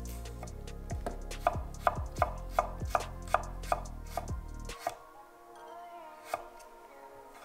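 Nakiri knife slicing through mango onto a wooden cutting board: a quick, even run of knocks, about three a second, that stops a little past halfway, followed by one more knock near the end.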